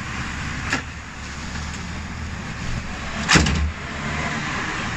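Car bonnet of a Honda Prelude being lowered and slammed shut: a light clack about three-quarters of a second in, then one loud bang a little past three seconds. A steady low hum runs underneath.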